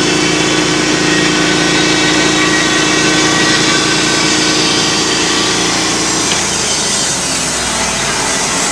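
Sawmill engine running under load as the blade cuts through a pine log, a steady machine drone whose note shifts about six seconds in.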